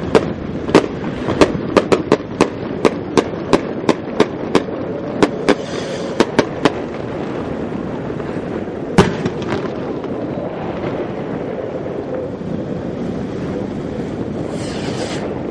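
A string of festival firecrackers going off: sharp bangs about two to three a second for the first six or seven seconds, then one louder single bang about nine seconds in. Under them runs the steady drone of the boat's engine and water.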